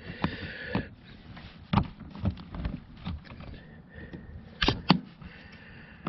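Plastic trim tool prying and scraping at the plastic retaining clips that hold a power seat switch in its trim panel. A short scrape at the start, scattered light clicks, then two sharper clicks close together near the end.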